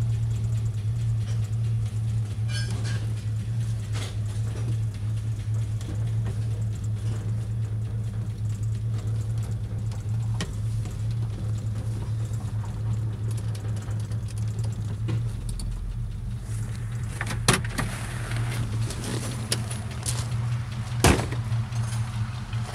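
1965 Ford Mustang V8 idling steadily with a low, even hum. Two sharp clunks come in the last few seconds, the second louder.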